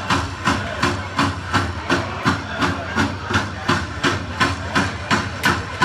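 Dene hand drums beaten together in a steady, even beat of about three strokes a second, the beat for a circle dance.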